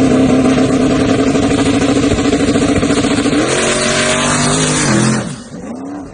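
Ford Mustang engine running loud at high revs, held fairly steady, climbing a little about three and a half seconds in, then falling and dropping off sharply a little after five seconds as the throttle is let go.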